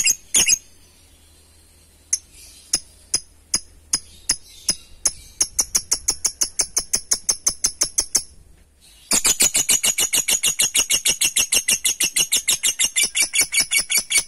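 Masked lovebird (blue mutation) chattering in its 'ngekek' trill, a fast string of sharp, high, evenly repeated notes. A few scattered calls speed up into a run, which breaks off for about a second past the middle. It then resumes as a louder, dense rattle of about seven notes a second.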